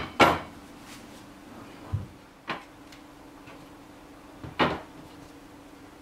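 Wooden pieces knocked and set down on a cutting mat on a bench: a loud knock just after the start, a dull thump and a sharper click around two seconds in, and another loud knock near five seconds.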